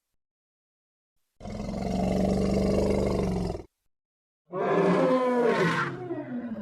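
Two separate elephant vocalizations. First a low rumbling roar lasting about two seconds, then after a short gap a pitched bellowing call that falls in pitch and is still sounding at the end.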